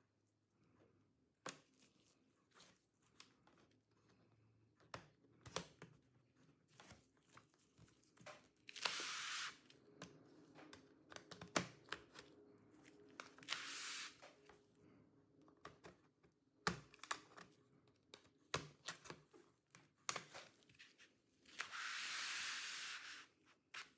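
Plastic pry picks working around the seam of an Acer Nitro V 15 laptop's bottom cover: scattered sharp clicks as the cover's clips snap loose, and three longer scraping sounds, each a second or two, as a pick is slid along the gap.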